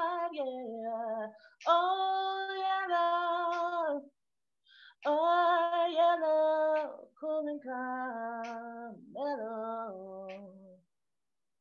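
A woman singing solo and unaccompanied, closing an improvised reggae-style song. It comes in four phrases of long held and sliding notes, with a short break in the middle, and the voice stops near the end.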